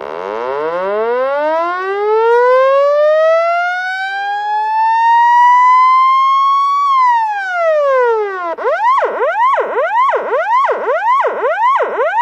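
Police siren in a slow wail, rising steadily for about seven seconds and then falling. It then switches to a fast yelp of a little over two sweeps a second.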